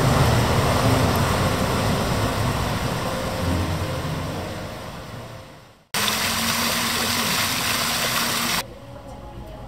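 Outdoor city ambience with a low traffic rumble that fades out over about six seconds. Then an abrupt cut to the steady splashing hiss of fountain jets, which drops to a faint hiss near the end.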